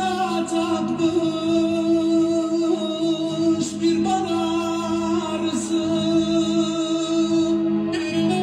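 Music: a slow song with a singing voice drawn out over long held notes underneath.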